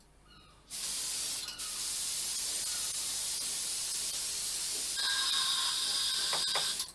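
Compressed-air gravity-feed paint spray gun spraying: a steady hiss of air and paint that starts about a second in, with a short break soon after. A whistling tone joins it about five seconds in, and the spray cuts off suddenly at the end.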